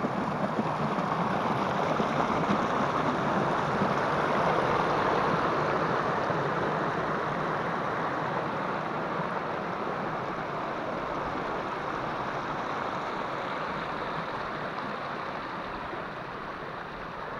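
Shallow mountain stream rushing and splashing down a narrow grassy channel, a steady rush of water that slowly grows quieter toward the end.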